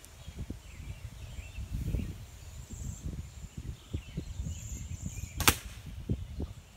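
A single sharp smack about five and a half seconds in: an arrow striking the bag target. Wind rumbles on the microphone throughout.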